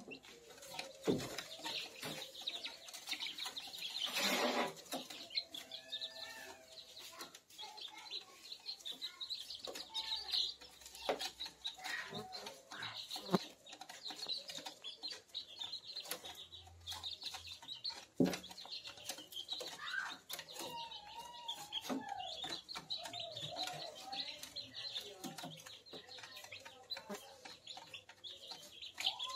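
Month-old ayam kampung chicks peeping steadily, with softer rising-and-falling calls and many short clicks as they peck feed off the brooder floor. A brief flutter of wings about four seconds in.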